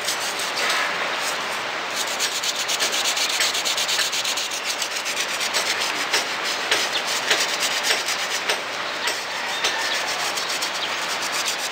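Toothbrush scrubbing the rubber sidewall and sole of a canvas skate shoe in rapid back-and-forth strokes, the bristles working through soapy lather.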